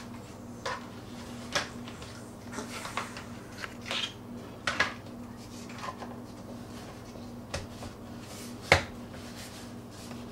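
Plastic food-storage tubs being handled on a countertop, their lids fitted and pressed down: a series of scattered light clicks and knocks of plastic, the loudest a sharp knock near the end. A steady low hum runs underneath.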